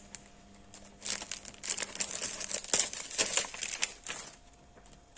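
Paper and plastic packaging crinkling as it is handled and turned over, in irregular bursts that start about a second in and die down near the end.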